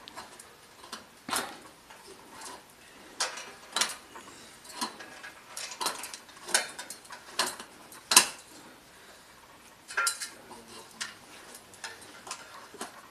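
Crampons striking aluminium ladder rungs during a climb: irregular sharp metallic clanks and clinks, some ringing briefly.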